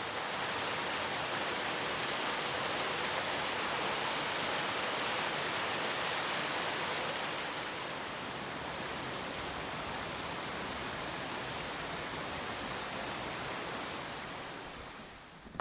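Steady rushing of flowing stream water, louder in the first half, fading out near the end.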